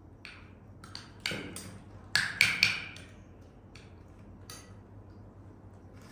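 Sharp taps and clinks of tableware being handled. The three loudest come in quick succession about two seconds in, with fainter clicks before and after.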